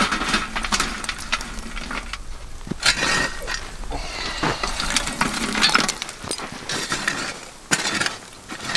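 Lumps of hot charcoal shovelled from a fire and tipped onto a tin lid, clinking and scraping in several bursts as the shovel scoops and dumps them.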